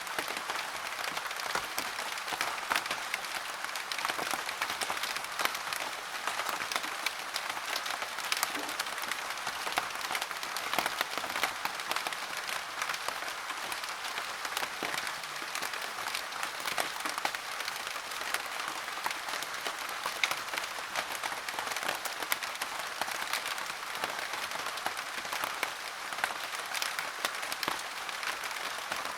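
Steady rain: a dense, even patter of drops with many fine crackling taps throughout.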